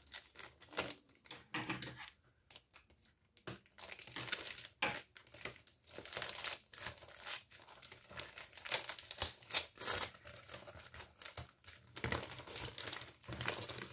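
Glossy wrapping paper crinkling and tearing as a present is unwrapped by hand, in irregular rustling crackles, sparser for a second or so about two seconds in.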